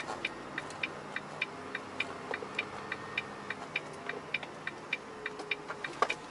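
A truck's turn-signal indicator clicking steadily in the cab, about three clicks a second, with one louder click near the end.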